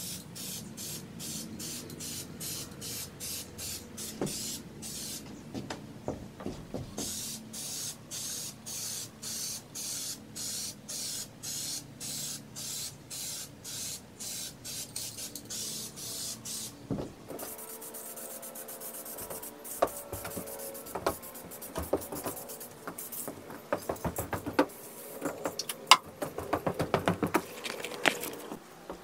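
Aerosol spray can of clear coat hissing in short, rapid bursts, about two a second, for roughly the first half. After that comes a steadier hiss broken by many small clicks and taps.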